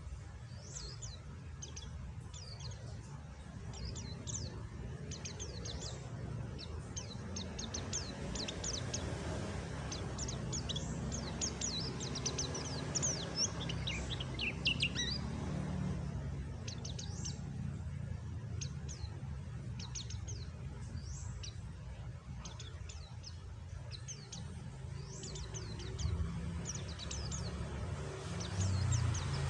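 Pet white-eye (pleci) twittering in quick, high-pitched chirps, many short falling notes in rapid runs, busiest about a third of the way in and again near the end, over a steady low background noise.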